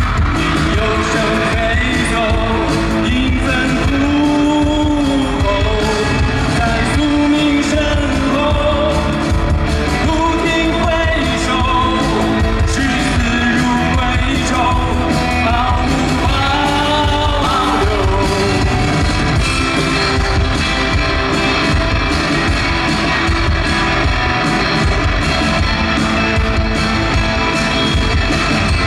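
Live band music: a man singing lead over guitar and drum kit. The vocal line gives way to instrumental playing a little past halfway.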